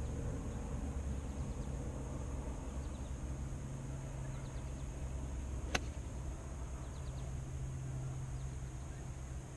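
A single sharp click of a golf club striking the ball, about six seconds in, over a steady low background hum.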